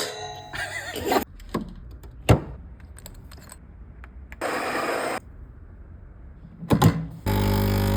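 Handling of a new coffee machine: scattered clicks, knocks and a short rustle. About seven seconds in, the machine's pump buzzes steadily for about a second and a half, then cuts off.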